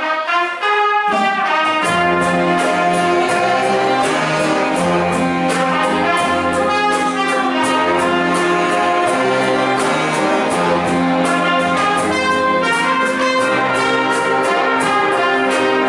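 Big band playing an instrumental passage: the saxophone section and brass hold chords over a steady drum beat, the low instruments coming in about a second in.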